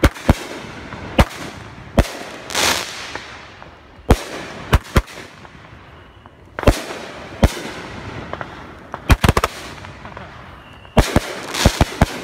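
Aerial fireworks bursting overhead: sharp bangs at uneven intervals, some in quick clusters of two or three, with a short rush of crackle about two and a half seconds in.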